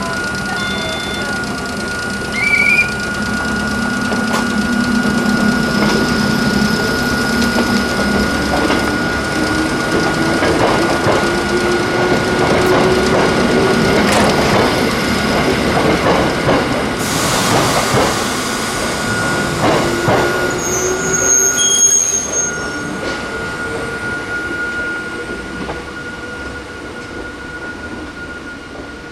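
Hakone Tozan Railway electric train running on the mountain line: the motors whine, slowly rising in pitch, over the clatter of the wheels on the rails, with brief high wheel squeals about two-thirds of the way through. The sound swells and then fades toward the end.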